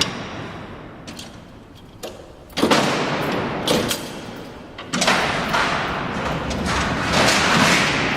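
Alcatraz's steel barred cell doors, driven by the cellhouse lever-and-clutch mechanism, rolling along their tracks and clanging, with a long echo. A rumble fades out over the first two seconds, a sudden loud clang comes about two and a half seconds in, and another run of rolling and clanking starts about five seconds in.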